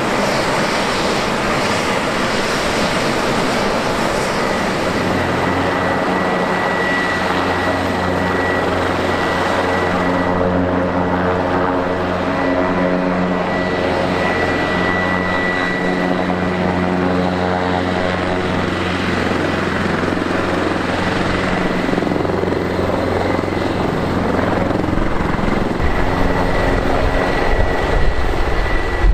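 Bell 525 Relentless helicopter running on the ground with its rotors turning: a steady rotor beat under a high turbine whine held on one pitch.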